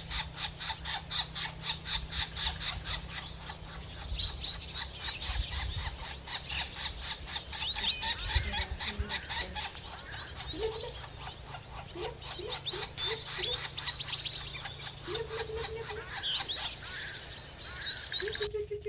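Chickens calling in a farmyard, with short low calls in the second half, over high twittering chirps and a fast, even ticking of about five ticks a second that stops shortly before the end.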